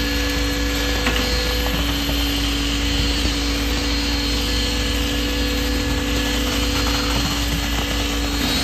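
Construction machinery at a concrete pour running steadily: a constant motor hum with a noisy whir over it, starting abruptly just before and holding even throughout.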